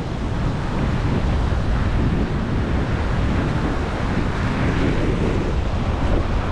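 Wind buffeting the microphone over the steady wash of surf breaking on a rock ledge.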